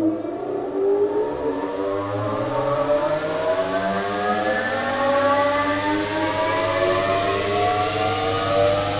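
A motor-driven machine spinning up, its whine made of several tones rising slowly and steadily in pitch over a steady low hum.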